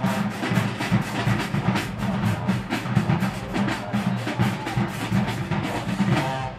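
High school marching band playing a dance tune: brass and sousaphones over a driving drumline with rapid, regular drum strokes. The whole band stops abruptly at the very end.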